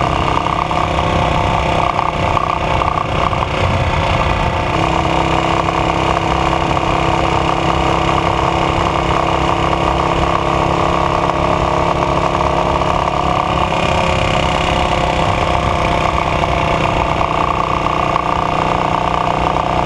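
AJS Model 8 motorcycle engine running steadily at idle, its note shifting slightly about five seconds in; the engine has a knock.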